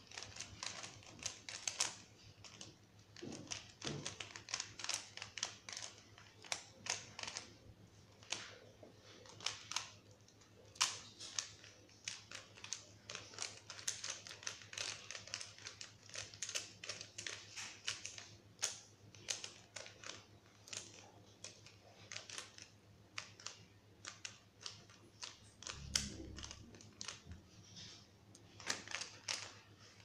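Plastic 3x3 Rubik's cube being turned rapidly by hand: a steady, irregular clatter of layer turns clicking, several a second.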